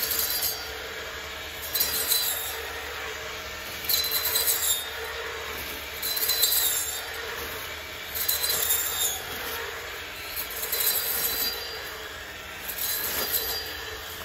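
Battery-powered electric brushcutter running with a steady motor whine, with a loud swishing, crackling burst about every two seconds as the cutting strokes go through dry crop stalks.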